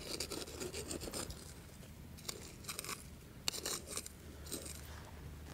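Metal garden hand trowel chopping and scraping into the dry, crusted soil of a fire ant mound, a string of faint, irregular scrapes and crunches.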